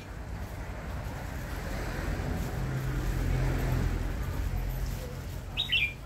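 A red-whiskered bulbul gives one short, high call near the end. Before it, a low engine rumble from a passing vehicle swells and fades away.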